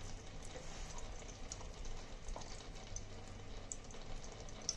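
Desi ghee heating in a non-stick pan over a low gas flame, faintly crackling with scattered small ticks.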